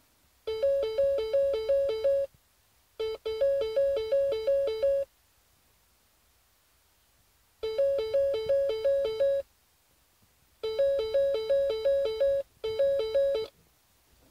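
Electronic two-tone warble beeping: a high and a low note alternate about three times a second. It comes in five or six bursts of one to two seconds, separated by irregular pauses.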